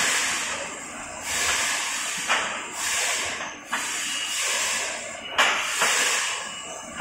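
Dual-head automatic soldering robot at work, giving a burst of hiss roughly every second, with a few sharp clicks between the bursts.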